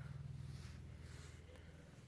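Domestic cat purring close by: a faint, low, rapidly pulsing rumble.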